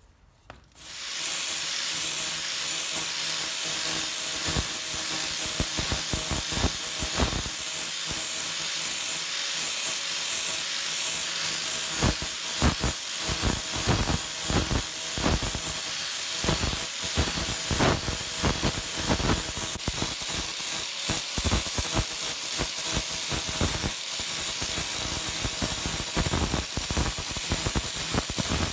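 Angle grinder with a sanding disc starting up about a second in, then running with a steady hiss and whine while it sands a wooden hammer handle, with uneven rasping surges as the disc is pressed onto the wood.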